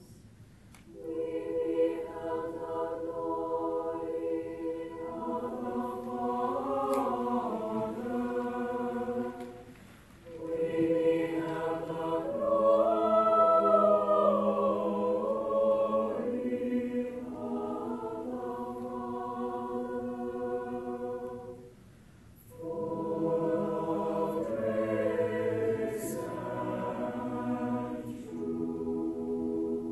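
Large mixed high school choir singing slow, sustained chords in three long phrases, with short breaks for breath about ten seconds in and about twenty-two seconds in; the middle phrase is the loudest.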